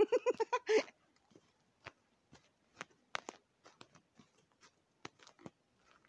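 Footsteps crunching in packed snow, soft and irregular, about two steps a second, after a short burst of voice at the start.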